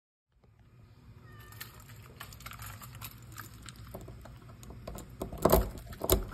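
A cat meowing, with a doorknob being handled: small clicks throughout and two loud knocks near the end.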